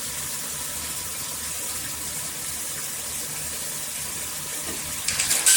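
Shower head spraying water, a steady hiss. A few sharp clicks and knocks about five seconds in.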